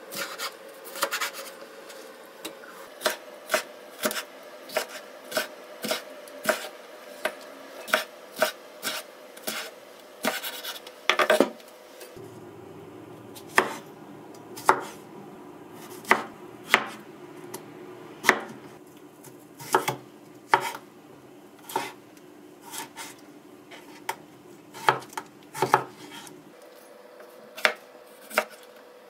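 Kitchen knife cutting through red bell pepper and then cucumber on a wooden cutting board, each cut ending in a sharp knock of the blade on the board, roughly once a second, with a quick run of cuts a little before the middle.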